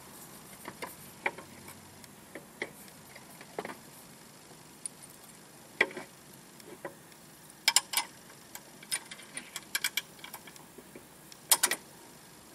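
Scattered metal clicks and clinks from a new exhaust pipe being fitted and fastened under a 125 cc scooter, with a few quick clusters of sharper clicks.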